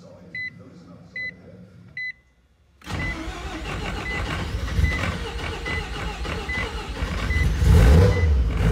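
Starter cranking the freshly rebuilt Mazda 13B rotary engine of an FC RX-7. The cranking begins about three seconds in and grows louder toward the end as the engine tries to start with the tank almost out of gas. A high electronic warning beep repeats about every 0.8 seconds throughout.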